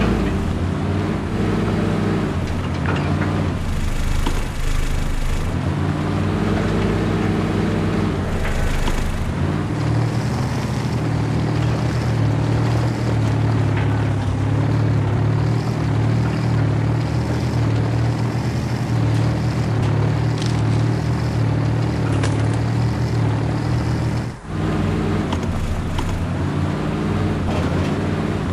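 RC scale crawler trucks climbing over sandy rocks, heard as a steady, engine-like low drone that shifts pitch in steps. The sound cuts out briefly near the end.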